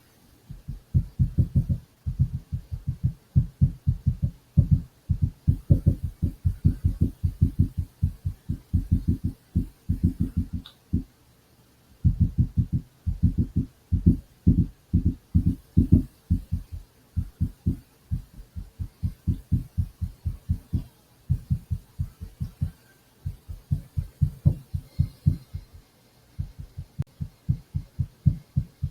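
Rapid, repeated dull low thumps, several a second, in runs broken by brief pauses, the longest about a third of the way in.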